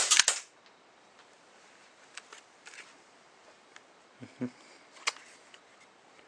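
KWC Jericho 941 CO2 airsoft pistol firing once, a sharp gas shot with the mock hammer snapping back, right at the start; afterwards a few faint clicks and a soft knock as the pistol is handled.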